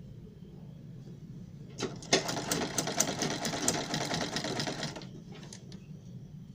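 Sewing machine stitching an invisible zipper onto fabric: a rapid run of needle clatter for about three seconds, starting about two seconds in and stopping near the five-second mark, over a low steady hum.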